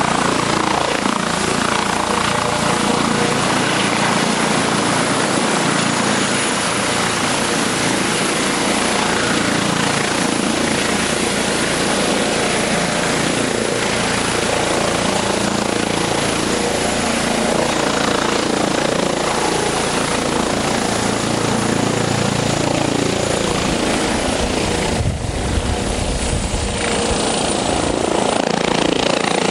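Eurocopter EC155B helicopter's twin turboshaft engines, five-blade main rotor and Fenestron tail rotor running loud and steady as it hovers low over the pad and sets down on its wheels. A deeper low rumble builds near the end.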